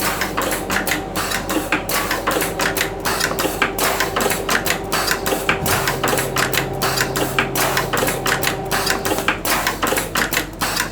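A fully automatic winding machine running, with a rapid, irregular clatter of clicks. A low motor hum joins it about five and a half seconds in and stops around nine seconds.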